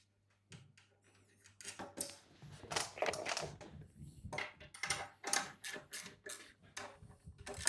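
Quick irregular clicks and taps of nuts and bolts being fitted to the bed frame's corner brackets and tightened with a 10mm spanner, starting about a second and a half in.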